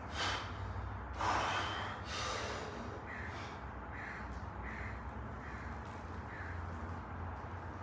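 Hard, sharp breaths from a weightlifter bracing under a loaded barbell for a back squat, the loudest about a second in. They are followed by a series of short, faint sounds about once a second.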